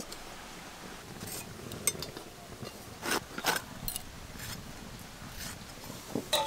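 Capsicum being sliced against a bonti blade: a handful of short, crisp cuts and clicks at uneven intervals over a quiet background.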